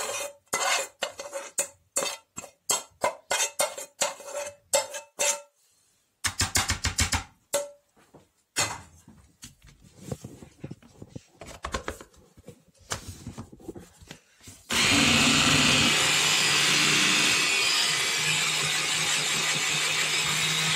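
A metal spoon scraping and tapping fried onion out of a non-stick frying pan into a plastic chopper bowl, in quick strokes, followed by plastic clicks and knocks as the chopper's lid and motor unit are fitted. About fifteen seconds in, an electric hand blender's chopper attachment starts abruptly and runs steadily, mincing fried onion and oyster mushrooms.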